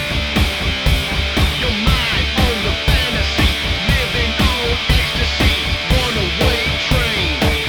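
Loud rock music with distorted electric guitar over a steady drum beat.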